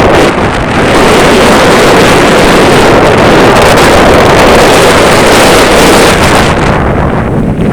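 Loud, steady rushing of wind buffeting the microphone, with surf possibly underneath.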